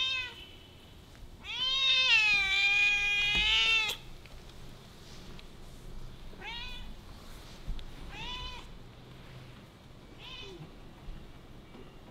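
Orange tabby cat meowing: a short meow, then one long, loud meow of over two seconds, then three shorter meows a couple of seconds apart, the last one faint.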